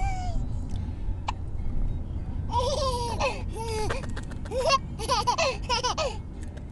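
A baby laughing in a run of short, high-pitched bursts that starts about two and a half seconds in, over the steady low rumble of a car's interior.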